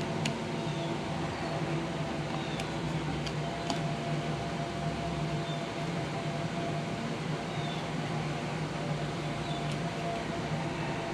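A steady mechanical hum with a low drone and a faint higher tone, and a few faint sharp clicks now and then.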